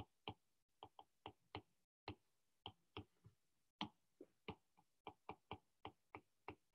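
Faint, sharp clicks of a pen stylus tapping a tablet screen during handwriting, about three a second at uneven spacing.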